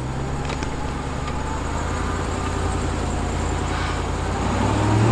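2021 Ram TRX's supercharged 6.2-litre V8 under load while the tyres spin in deep snow, losing traction. The engine note rises slowly and is loudest near the end.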